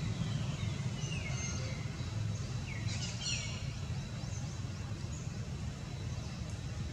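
Outdoor ambience: a steady low rumble with several short, high chirps that fall in pitch, bunched together around a second and three seconds in.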